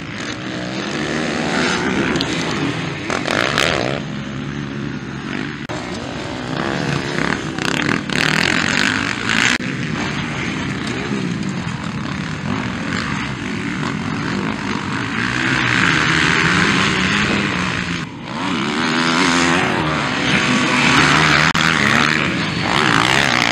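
Several motocross dirt bikes racing, their engines revving up and down in pitch as riders accelerate through the corners and over jumps.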